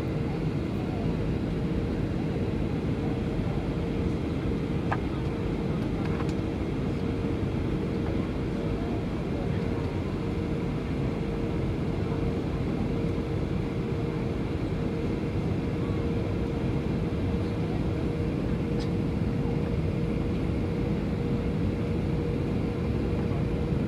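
Steady cabin noise inside a Boeing 737 on approach: an even roar of jet engines and airflow with a constant two-tone hum, and a few faint clicks.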